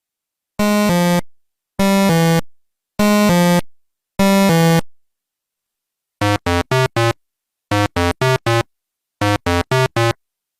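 Electronic synthesizer tones with bright, buzzy overtones: four held phrases about a second apart, each a pair of notes, then three quick runs of four short notes, with silence between.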